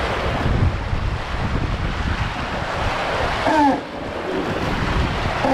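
Wind buffeting the microphone over the rush of water streaming along the hull of a sailing yacht under way. About three and a half seconds in, a short voice call cuts through.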